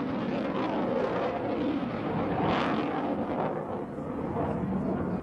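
Jet noise from a Panavia Tornado's twin afterburning turbofan engines as the jet manoeuvres overhead: a steady rushing noise that swells about halfway through and eases slightly toward the end.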